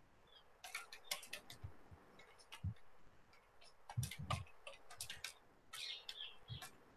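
Faint, irregular keystrokes clicking on a computer keyboard as text is typed.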